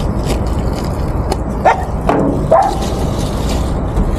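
Stray dogs yipping: a few short, pitch-bending yelps about two seconds in, over a steady low rumble.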